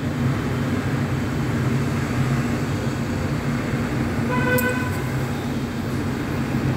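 Cauliflower, potato and soya chunks frying in spice paste in a kadai, a steady sizzle over a constant low hum. A short horn toot sounds about four and a half seconds in.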